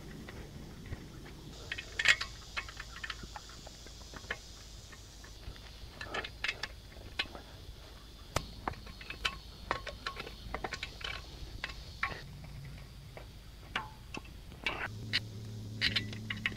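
Small metallic clicks and clinks, irregular and scattered, of exhaust bolts and the muffler being handled while the bolts are threaded in finger tight on a small engine.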